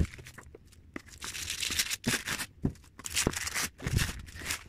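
Thin onion-skin tissue paper rustling in irregular bursts as it is pulled off a boxed figure, with a few short sharp clicks of the box being handled.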